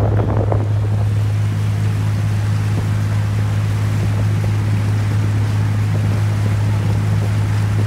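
Lake boat's engine running with a steady low drone, over the rush of water churning in its wake.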